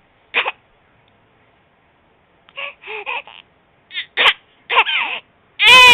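Three-month-old baby's coughing-style cry. Short cough-like bursts come in small clusters with pauses between them, and near the end they break into a loud, drawn-out wail.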